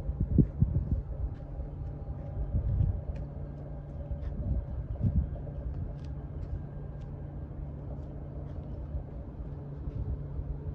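Outdoor background noise: a steady low rumble with a constant hum, and a few louder low swells in the first second and again a few seconds in.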